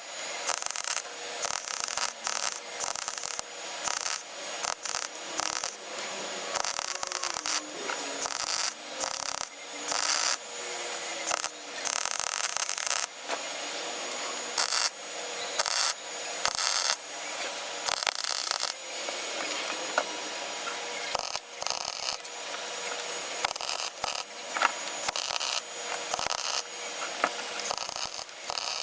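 Gas-shielded MIG welder stitch-welding a steel floor panel: short bursts of crackling arc, each under about a second, with brief pauses between them.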